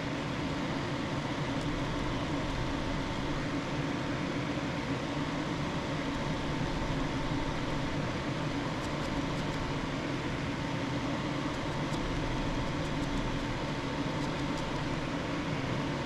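Steady hum of a running fan, with a faint constant high whine, and a few faint small ticks in the second half.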